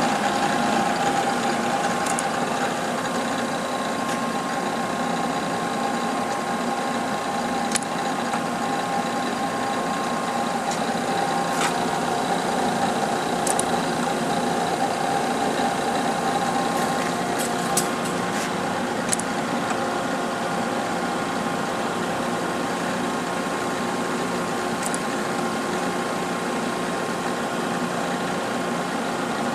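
Cincinnati universal cylindrical grinder running under power: a steady machine hum holding several steady tones, with a few short ticks scattered through it.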